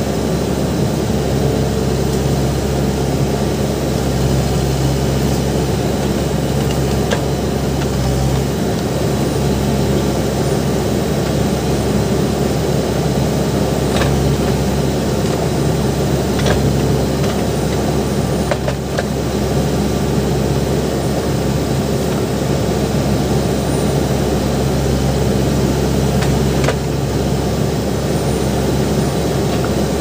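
Case 580 Super M backhoe loader's four-cylinder diesel engine running steadily under load as the backhoe digs, its note shifting slightly about eight seconds in. A few faint knocks are heard along the way.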